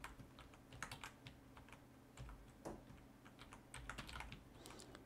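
Faint typing on a computer keyboard: a run of irregular keystrokes.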